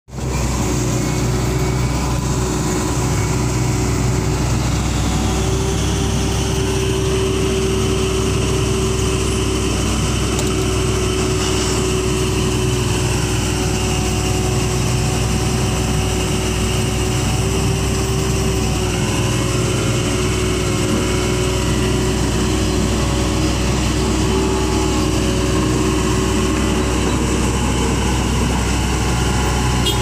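Hitachi tracked excavator's diesel engine running steadily. Whines rise and fall in pitch a few times as the boom and log grapple are worked.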